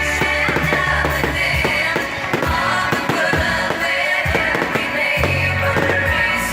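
Music with singing over a rapid, irregular series of firework bangs.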